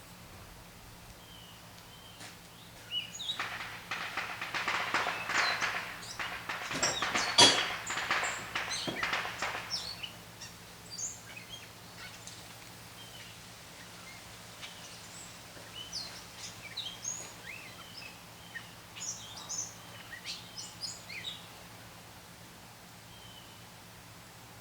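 Small birds chirping on and off, with a burst of quick clicking and rattling noises from about three to ten seconds in, loudest near the middle of that stretch.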